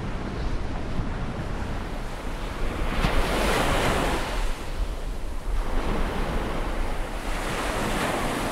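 Sea waves surging and breaking over rocks, a steady rush of surf that swells into louder surges about three seconds in and again around six seconds, over a constant low rumble.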